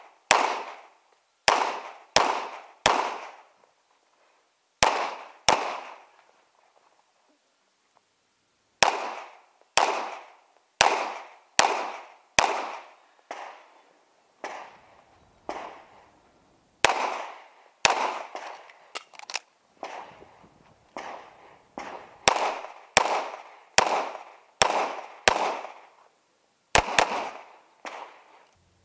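Semi-automatic pistol shots fired in rapid strings during a practical shooting stage, about thirty in all and mostly about half a second apart, with a pause of about three seconds a quarter of the way in while the shooter moves to a new position.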